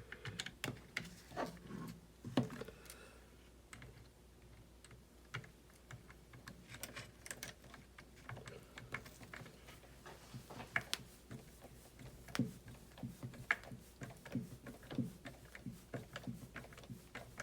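Irregular light clicks and taps of small plastic and metal parts being handled and fitted together while assembling an RC car's steering linkage by hand, with a few sharper knocks.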